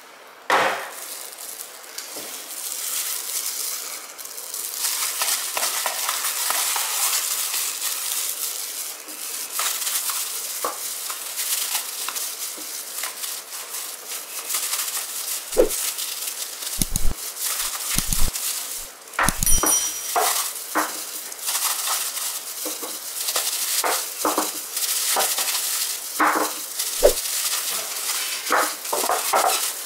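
Aluminium baking tins handled on a wooden table: a steady rustle of plastic-gloved hands rubbing around the inside of a round tin, with scattered clinks and knocks of metal, most of them in the second half.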